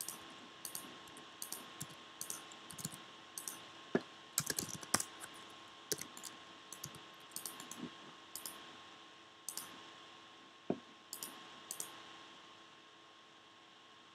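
Computer keyboard and mouse clicks, irregular scattered taps and clicks, the sound of keyboard shortcuts and mouse work at a computer.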